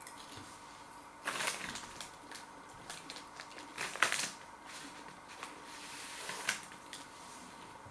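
Crunchy bacon and barbecue snack bites being chewed: irregular crunches, loudest about a second in, around four seconds and again near the end.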